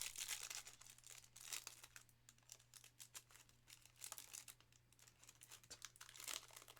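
Faint crinkling and tearing of a trading-card pack wrapper being opened by hand, with small irregular crackles and rustles as the cards are handled.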